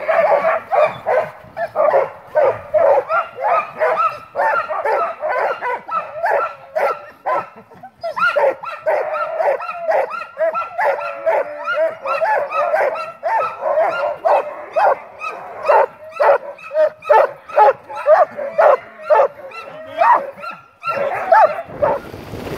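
A team of harnessed sled dogs barking and yelping over and over, several barks a second from many dogs at once: the excited clamour of a team waiting at hookup to run. About a second before the end the barking cuts off to wind rushing on the microphone.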